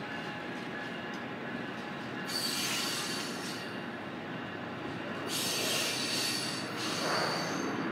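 Amtrak passenger train of bilevel coaches rolling past, its wheels squealing on the rails in thin steady tones over a constant rumble. Twice there is a burst of high hissing noise.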